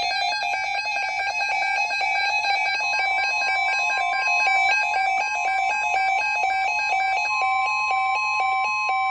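Emergency alert tones: a fast electronic alarm beeping several times a second, joined about three seconds in by a steady high tone that grows louder about seven seconds in. The beeping stops just before the end.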